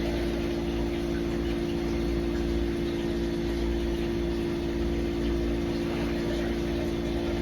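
Steady machine hum: a constant low drone with a few unchanging tones, holding level throughout.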